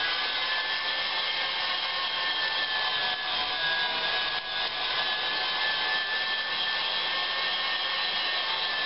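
Electric stand mixer driving a meat grinder attachment, its motor running with a steady whine as chunks of raw beef are fed through and ground.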